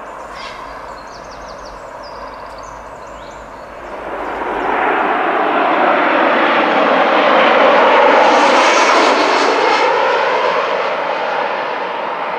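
Airbus A320 jet airliner on landing approach passing overhead. Its engine noise swells from about four seconds in, peaks near eight seconds, then fades. A few bird chirps are heard in the first seconds.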